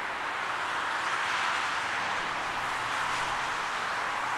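Distant jet engines of a landing airliner: a steady, even rush with no distinct pitch.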